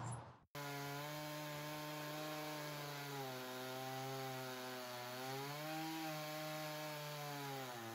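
Stihl MS661 two-stroke chainsaw running under load in an Alaskan chainsaw mill, ripping lengthwise through a log. It starts suddenly about half a second in, and its pitch sags and recovers a few times as the cut loads the engine.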